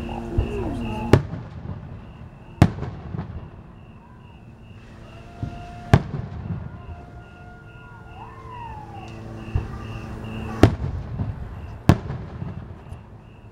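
Aerial fireworks shells bursting, with five loud sharp booms spread irregularly and a few fainter pops between them, each echoing off nearby houses.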